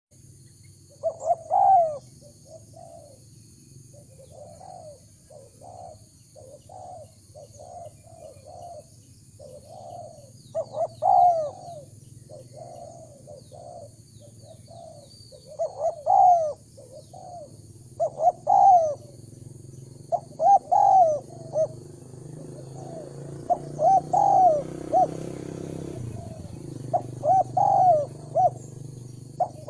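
Spotted doves cooing: loud phrases of a few quick coos come every two to three seconds, with softer coos in between.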